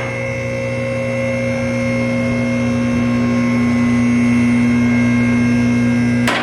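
Electric hydraulic pump motor of a car lift running steadily with a mains-frequency hum as it raises a car, with a short click near the end.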